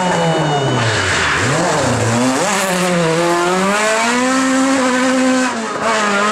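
A rally car's engine under hard driving: its pitch falls as the car slows, rises again about two seconds in, and holds at high revs, with a brief lift off the throttle near the end before it pulls again.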